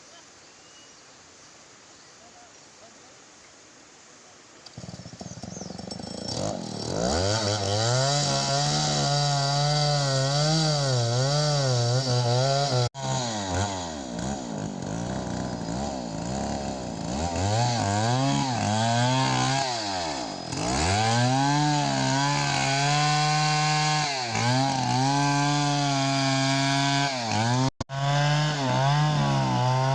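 Stihl 070 two-stroke chainsaw starting about five seconds in and then running hard, its engine speed rising and falling again and again. The sound breaks off twice for a moment.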